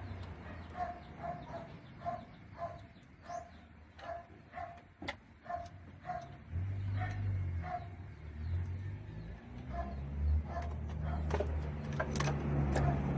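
A quick series of short, pitched animal calls, about two to three a second, over a low rumble that comes and goes.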